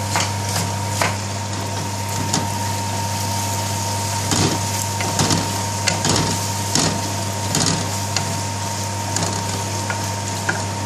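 Wooden spoon stirring sliced onions and whole spices in oil in an aluminium pan, knocking and scraping against the metal in a run of short irregular knocks, busiest in the middle. A steady mechanical hum runs underneath.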